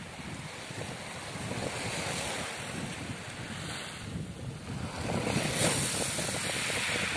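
Small waves washing up on a sand-and-gravel beach, swelling about two seconds in and again, louder, near the end, with wind rumbling on the microphone.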